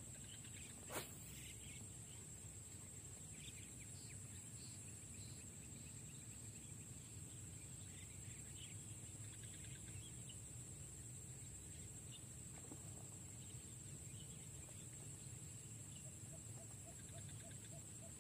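Faint ambience: a steady high-pitched insect drone with scattered faint bird chirps, and one sharp click about a second in.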